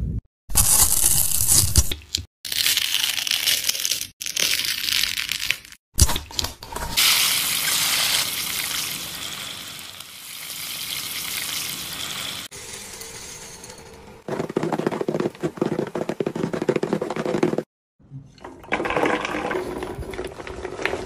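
A string of separate food-preparation sounds in short cuts, with brief silences between them, mostly hissing, pouring-type noise. Near the end, pink popcorn is poured into a large glass jar.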